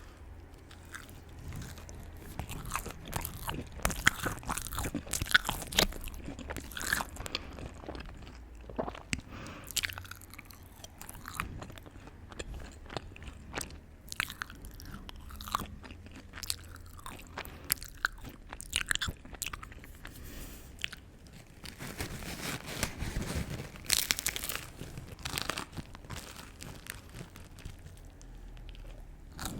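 A person eating close to the microphone: irregular crunchy bites and chewing, coming in clusters with short pauses between them.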